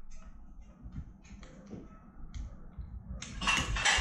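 Light taps and clicks of kitchen utensils and containers being handled on a counter, with a louder clatter near the end.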